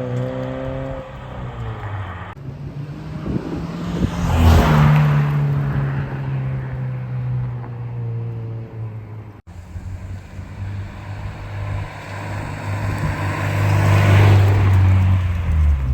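Subaru BRZ / Toyota GR86 2.4-litre flat-four engine through a Scorpion non-resonated GPF-back exhaust, idling and revved, the note swelling loudest about four seconds in and again near the end.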